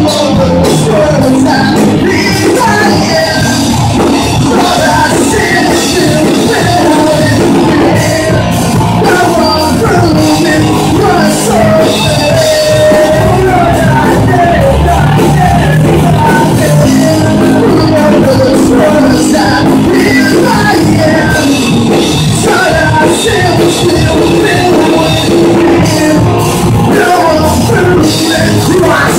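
Live rock band playing: electric guitars, bass and drum kit, with a singer over the top.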